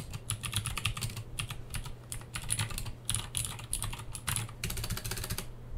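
Fast typing on an Anne Pro mechanical keyboard with clicky blue Cherry MX-clone switches, picked up close to the microphone. It is a rapid run of keystroke clicks that stops about half a second before the end.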